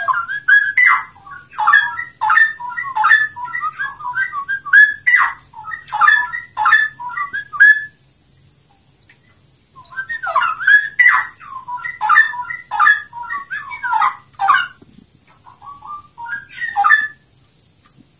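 White-rumped shama (murai batu, Medan type) singing hard, fast whistled notes mixed with sharp clicking 'cough' (batuk) notes, a bird provoked into full song. It sings in two long bouts with a pause of about two seconds near the middle.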